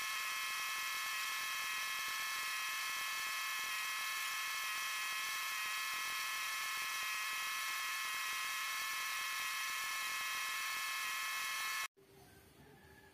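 Compressed-air spray gun spraying lacquer: a steady hiss with a high whistle, cutting off suddenly near the end.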